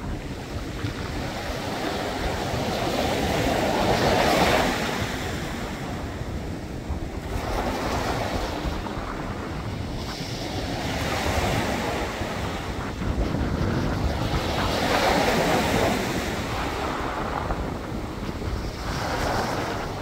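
Small waves breaking and washing up onto a pebble beach, swelling in about five times, roughly every three to four seconds. Wind rumbles on the microphone underneath.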